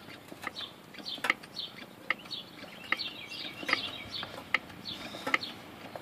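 Faint, irregular sharp clicks and creaks, roughly two a second, from a hydraulic ram pressing a rusted front hub assembly out of the steering knuckle, with birds chirping in the background.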